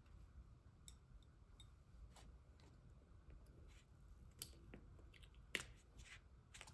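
Faint scattered clicks and light paper rustles of plastic tweezers lifting small paper stickers from a sticker sheet and pressing them onto a planner page, with two sharper ticks a little past the middle.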